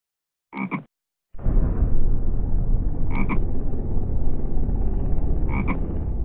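Frog croaking: short double calls, three times about two and a half seconds apart. From about a second in, a loud continuous low rumble runs under them.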